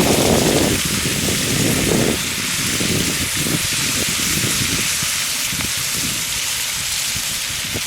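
Food sizzling in a pan over a campfire: a steady, even hiss.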